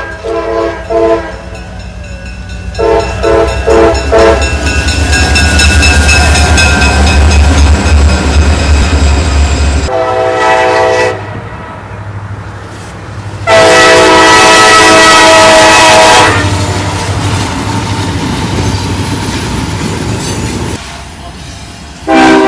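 Freight train diesel locomotive horns sounding for grade crossings, across several cuts. First come short blasts, then a long blast over the heavy low rumble of the passing locomotive. After a cut there is a brief blast and then a long, loud one, and another horn starts near the end.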